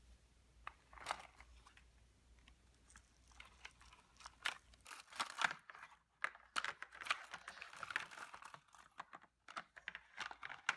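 Hard plastic dinosaur sand-toy molds handled and stacked, with light clicks and knocks of plastic against plastic and rustling of their mesh net bag; the handling gets busier about halfway through.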